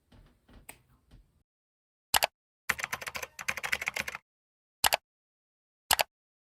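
Keyboard-like clicking sound effects: a single click about two seconds in, a burst of rapid tapping lasting about a second and a half, then two more single clicks, with dead silence between them. Typical of an edited like-and-subscribe button animation.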